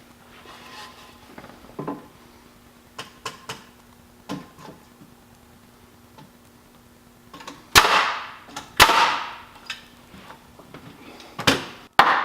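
Wooden workbench pieces being handled and fastened together: light knocks of boards against each other, then several loud sharp bangs on the wood, each trailing off over about a second, with a faint steady hum underneath.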